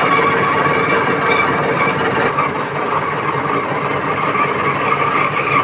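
NH22 lathe running during a drilling operation: steady machine noise with a steady whine on top, and a short click about two seconds in.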